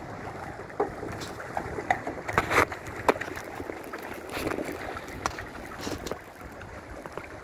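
Seawater sloshing and lapping against a wooden pier in a steady wash. Several sharp clicks and knocks come through it, the loudest a cluster about two to three seconds in.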